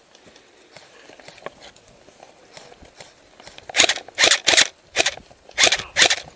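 Airsoft rifle firing six single shots in quick, uneven succession over about two and a half seconds, starting just past halfway through.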